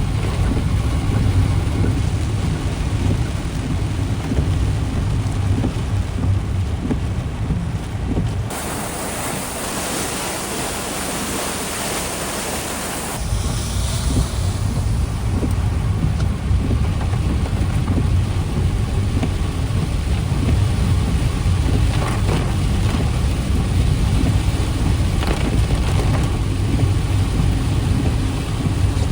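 Strong typhoon wind buffeting the microphone with a heavy low rumble, mixed with rain. From about eight seconds in, for roughly five seconds, the rumble drops away and a steady high hiss takes over before the buffeting returns.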